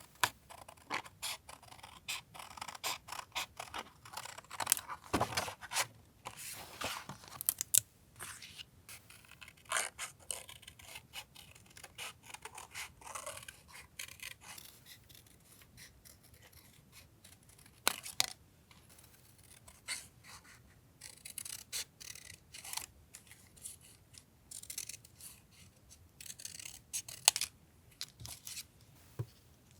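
Paper collage work: paper scraping and rustling, with irregular scissor snips and small taps.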